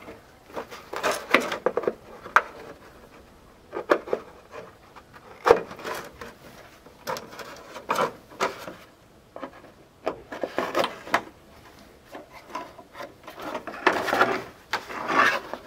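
Thin plastic plant pot and short PVC pipes being handled and pushed through slots cut in the pot. Plastic rubs, scrapes and knocks on plastic in short bouts with quiet gaps between them.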